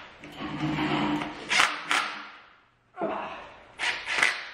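A cordless drill runs briefly with a steady whir, then metal brake parts clank and knock a few times.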